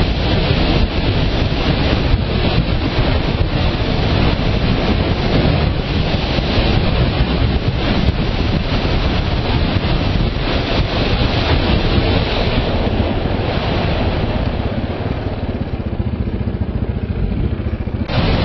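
Heavy wind rushing over the microphone on a moving KTM motorcycle, with the engine running underneath. The wind noise eases a little near the end.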